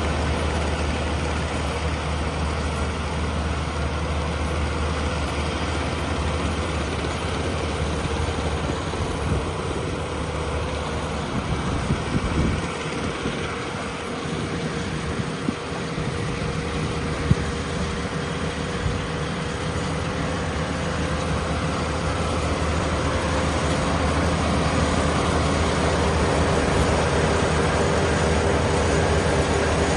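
Kubota WR575 combine harvester's diesel engine running steadily, with a few knocks about halfway through and a single sharp click shortly after.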